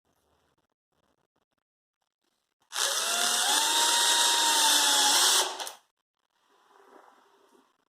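Drill/driver set to its low second gear driving a hinge screw into particle board: one steady run of about three seconds, starting about three seconds in and stopping abruptly.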